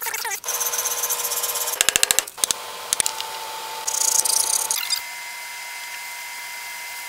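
Hand work on a walnut tray: rasping, scraping strokes of wood being worked by hand, including a quick run of short strokes and a brighter hiss about four seconds in. A faint steady whine sits behind and changes pitch twice.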